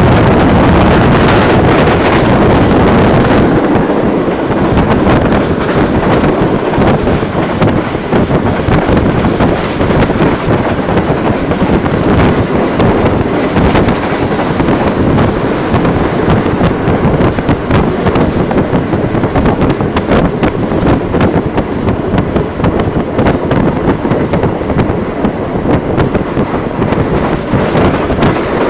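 Karakoram Express passenger train passing at speed, loud and continuous, its wheels making dense rapid clatter over the rails, with wind buffeting the microphone.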